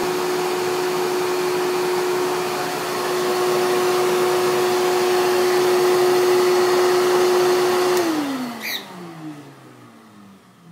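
Shop-Vac wet/dry vacuum, socks taped over its exhaust ports, running with a loud steady whine, then switched off with a click about eight seconds in, its motor winding down in falling pitch.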